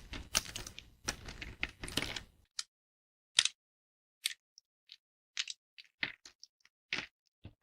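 Thin dry soap plates being broken by hand with crunchy cracking: a dense run of crackles for about the first two and a half seconds, then separate sharp snaps at irregular intervals.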